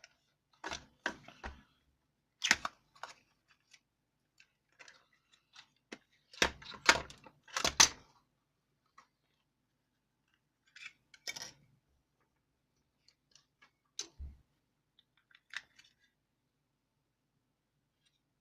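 Irregular clicks and light knocks in short clusters, a few with a low thump, separated by quiet gaps.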